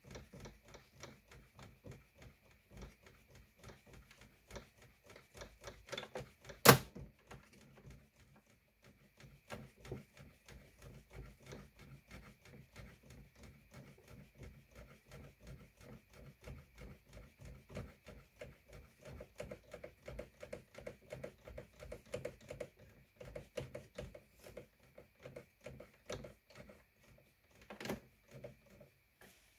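Rapid plastic clicking and ticking from the gear train of an Aiwa HV-M10SH VHS player's tape-transport mechanism being worked by hand, over a faint steady high whine. One sharp, louder click comes about seven seconds in and another near the end.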